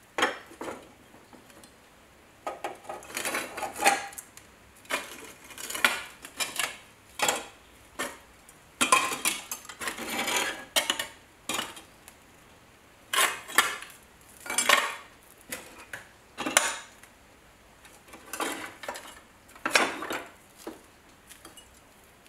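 Rusty iron tools and scrap clinking and scraping against one another as a gloved hand rummages through a wooden crate of them, in short irregular spells with brief pauses between.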